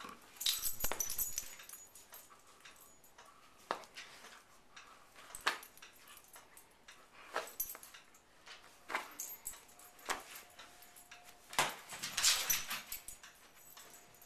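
Standard poodle chewing and tugging on a ring toy: sharp crackling clicks and rustles every second or two, loudest near the start and again about twelve seconds in.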